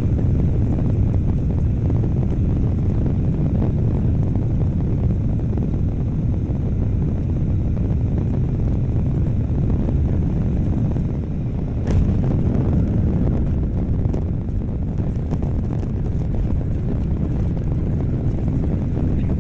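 Ryanair Boeing 737 airliner noise: a steady, loud low rumble, with a short sharp click about twelve seconds in.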